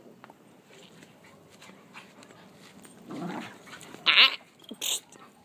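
Dogs play-fighting: a low growl about three seconds in, then a loud, high bark about four seconds in and a second, shorter one just before five seconds.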